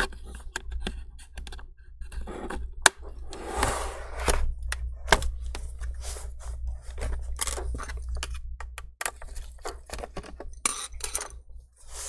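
Plastic clips of a Dell Inspiron laptop's bottom cover clicking and snapping loose as a pry tool is worked along the seam, with short scraping of the tool against the case.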